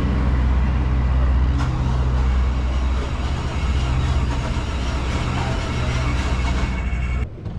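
Motor vehicle engine idling: a steady low hum with a broad wash of noise over it, cutting off suddenly near the end.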